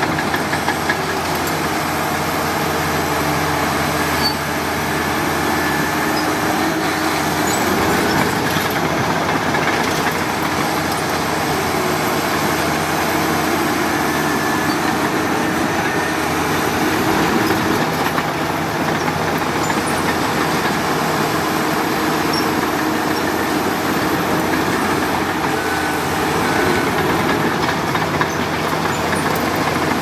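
Heavy diesel earthmoving machinery running steadily, a continuous engine drone with occasional knocks.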